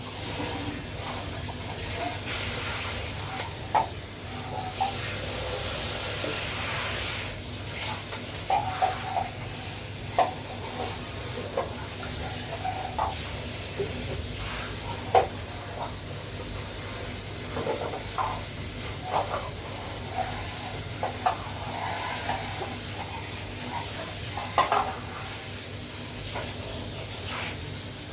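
Vacuum cleaner running steadily, with scattered knocks and clatters throughout.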